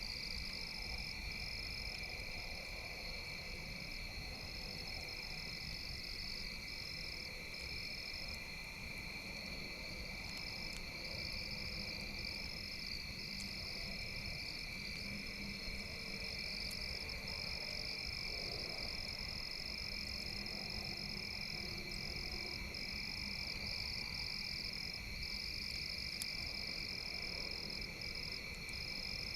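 Steady outdoor chorus of calling frogs and insects, a continuous high trilling that barely changes in level.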